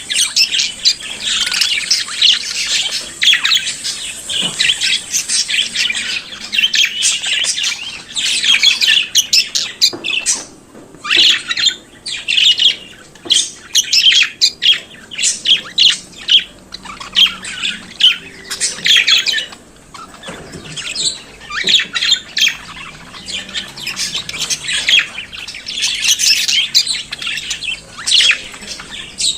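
Budgerigars warbling and chattering, a dense stream of rapid chirps, squawks and whistles with brief lulls.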